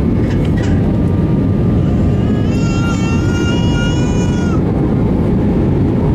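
Steady, loud cabin rumble of an Airbus A320 in flight on approach: engine and airflow noise heard from a window seat. About a third of the way in, a high drawn-out cry rises over it for about two seconds.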